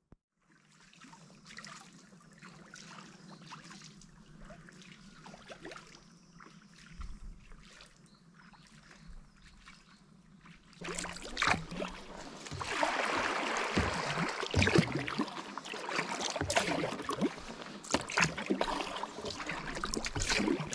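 Kayak paddling: a paddle dipping and pulling through water with splashes and dripping, much louder and busier from about halfway through.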